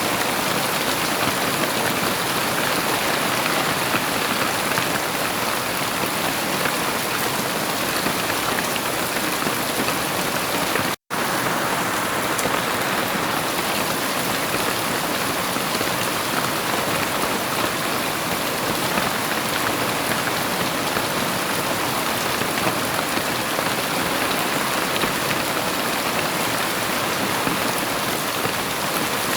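Heavy rain falling steadily, a dense, even hiss. It cuts out for an instant about eleven seconds in.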